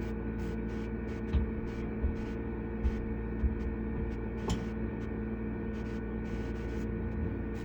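Steady electrical hum, with a few faint clicks and taps of hand tools working on a valve spring on a cylinder head.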